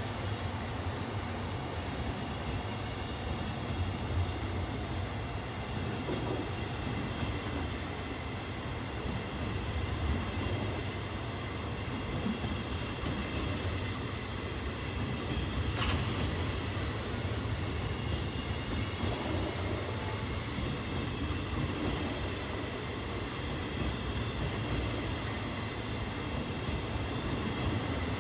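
Venice Simplon-Orient-Express passenger coaches rolling past on steel rails: a steady rumble of wheels on track with a faint high whine from the wheels. There is a single sharp click about halfway through.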